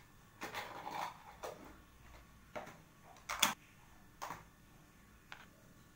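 A few light clicks and knocks of kitchen utensils and containers being handled, with a short scrape about half a second in and the sharpest click about three and a half seconds in.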